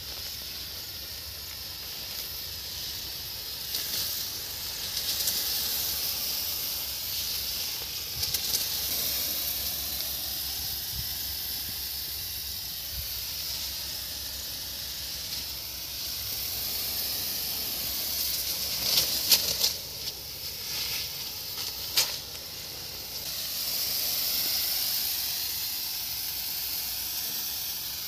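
Pesticide spray from a tractor-mounted sprayer hissing steadily, with a faint low rumble beneath and a few sharp clicks about two-thirds of the way through.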